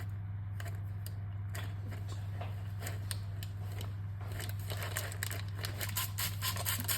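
Bread knife sawing through the crust of a baked sourdough loaf: a run of small crackling crunches, coming faster in the second half, over a steady low hum.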